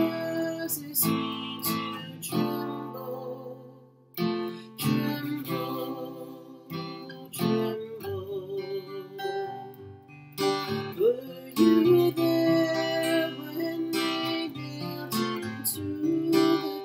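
Acoustic guitar strummed slowly, with a woman singing a slow hymn to it in held, wavering notes; there is a short break about four seconds in.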